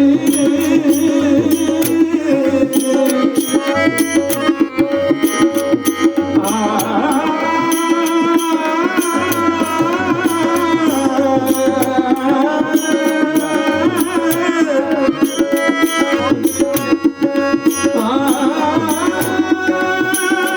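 Devotional abhang singing with drum and small cymbals keeping a steady rhythm over a sustained accompanying tone; the first seconds are instrumental, and an ornamented, gliding voice line comes in about six seconds in and carries on to the end.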